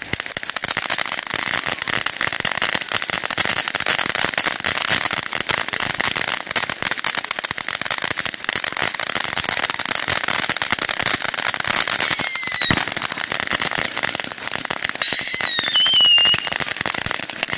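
A ground fountain firework spraying sparks with a dense, steady crackle. Two short falling whistles cut through it, about two-thirds of the way in and again near the end.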